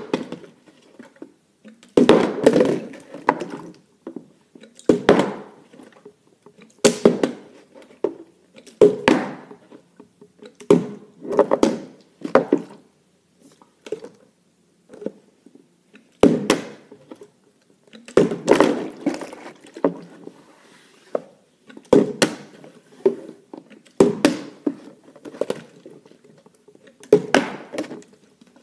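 Plastic water bottles flipped again and again and thudding down on the floor, a dozen or more landings, about one every two seconds.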